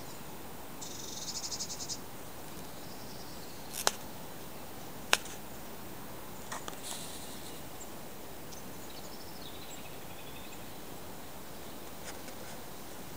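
Small birds calling: a fast, high trill about a second in, then scattered short high chirps, over a steady hiss. Two sharp clicks stand out as the loudest sounds, near four and five seconds.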